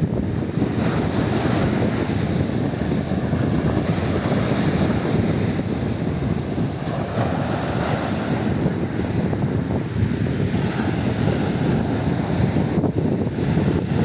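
Rough surf from a building storm breaking and washing up a pebble beach. Wind rumbles steadily on the microphone.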